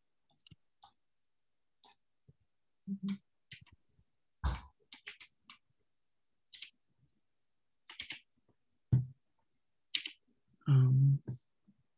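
Computer keyboard and mouse clicks, sparse and irregular, as someone types and edits a document. Near the end a brief, louder low vocal sound, like a throat being cleared.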